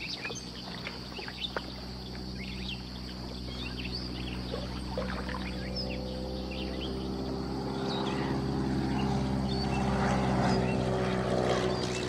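Swamp ambience of a steady insect chorus with scattered bird chirps, under the drone of a motor engine that grows louder, peaks a couple of seconds before the end, then begins to fade.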